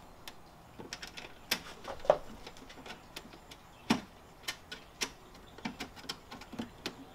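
Scattered, irregular clicks and light knocks of a BMW E46 M3 taillight unit and its mounting screws being handled and adjusted by hand, the sharpest about two and four seconds in.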